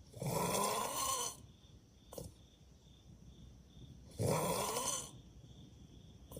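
A sleeping person snoring: two long snores about four seconds apart, each lasting about a second, with a short faint breath between them.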